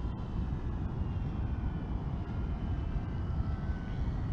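Faint whine of an electric RC plane, the MXS 3D aerobatic model, gliding down with its throttle cut, its thin tone drifting slightly in pitch over a steady low rumble.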